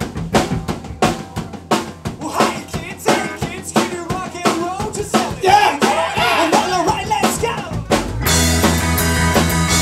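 Live rock band recording opening on a drum kit, kick, snare and rimshots played in a steady beat. About eight seconds in the full band comes in, louder and fuller.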